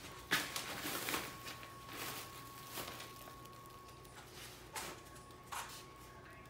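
Cats moving about in a fabric pop-up play tunnel and cube: about six short rustles and scuffs of the fabric.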